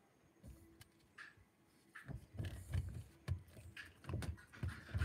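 Handling noise from a balloon and sellotape being worked close to the microphone: irregular soft thumps, crinkly rustles and sharp clicks. It starts about two seconds in, and the sharpest click comes at the very end.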